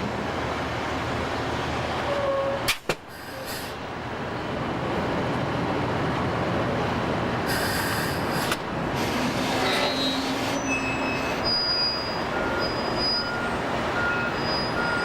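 Heavy construction machinery running with a steady mechanical din and some squealing. In the second half a reversing alarm beeps repeatedly.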